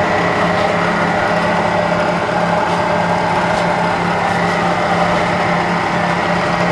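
Bridgeport Series II Special milling machine running, a steady machine hum with a higher whine that holds even throughout.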